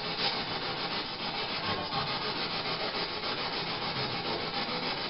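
Steady hiss of static noise with no break or change.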